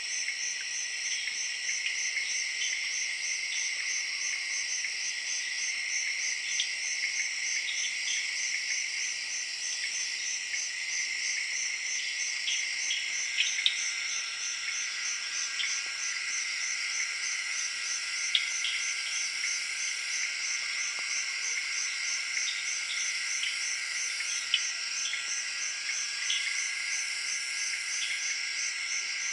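Evening chorus of crickets and tree frogs: a steady, finely pulsing high trill over a continuous lower buzz, with short calls dropping in here and there and a few louder single notes.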